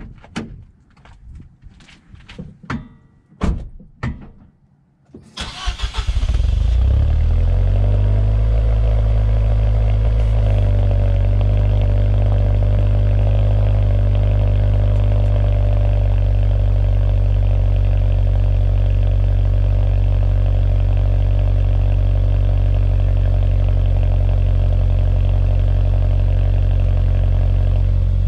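A few sharp clicks and knocks, then the 2014 Nissan Juke Nismo RS's 1.6-litre turbocharged four-cylinder cranks and catches about five seconds in, heard at the stock exhaust tip. It then idles steadily through the factory exhaust.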